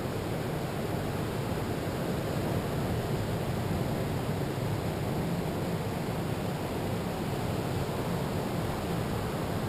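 Steady roar of surf breaking along a sandy beach, mixed with wind on the microphone.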